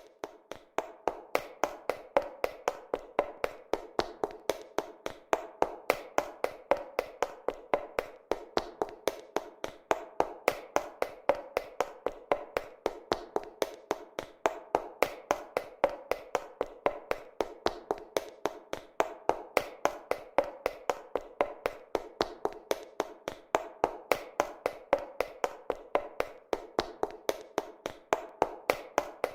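High-heeled shoes running on a hard floor: quick, even heel clicks, about four a second.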